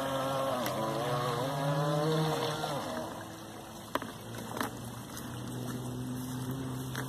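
Radio-controlled model boat's motor whining as it runs on the water, its pitch wavering up and down with the throttle. About three seconds in it drops quieter and settles into a steady lower hum, with two short clicks soon after.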